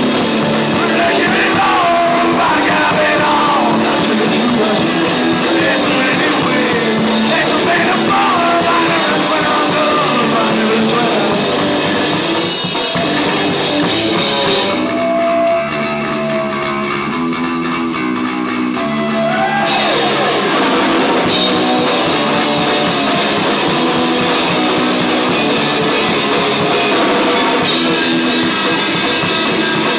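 Rock band playing live, with distorted electric guitars and a drum kit. About halfway through, the drums drop out for some five seconds, leaving the guitars with a held note, then the full band comes back in.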